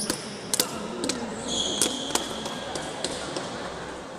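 Table tennis ball clicking sharply off paddles and the table, a handful of quick taps at uneven spacing.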